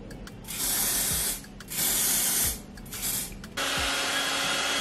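Aerosol wig grip spray hissing in three short bursts. About three and a half seconds in, a hair dryer switches on and runs steadily with a faint whine.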